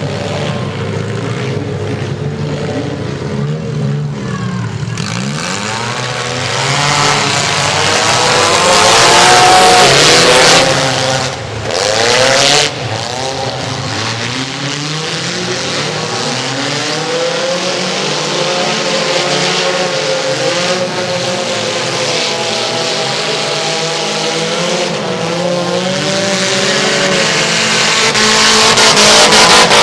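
Several small-car engines revving and running hard together as mini cars race in a demolition derby, their pitches rising and falling over one another. They are loudest about a third of the way in and again near the end.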